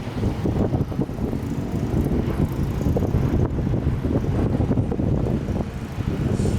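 Low, rough rumble of an arriving jet airliner's engines, uneven in level.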